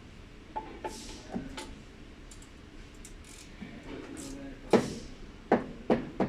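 Scattered sharp metallic clicks and knocks of hand tools working loose a transmission fill cap with a 3/8-inch drive extension, with the loudest few strikes close together in the last second and a half.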